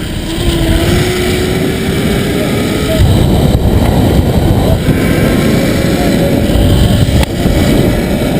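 Zipline trolley running down the steel cable with a thin whine that climbs slowly in pitch as it gathers speed, under loud wind rushing over the microphone that grows louder about three seconds in.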